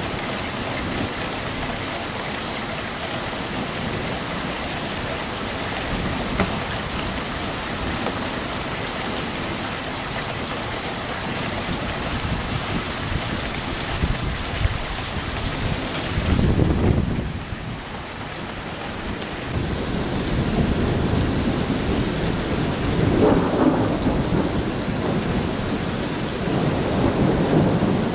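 Heavy thunderstorm rain falling steadily on a road. Thunder rumbles in over it about halfway through and keeps rolling to the end, loudest around two-thirds of the way in.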